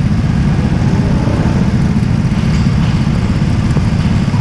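Go-kart engine idling: a loud, steady low rumble with a fast even pulse.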